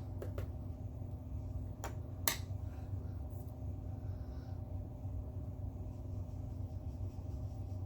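A few small sharp clicks and taps from handling makeup and a brush, the loudest about two seconds in, over a steady low hum.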